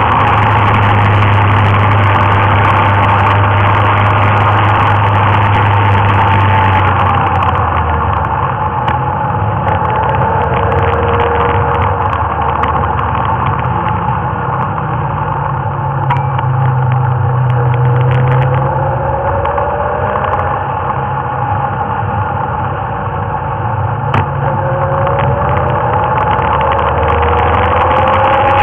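Motorcycle engine running while riding, its pitch rising and falling with the throttle, over steady wind and road noise.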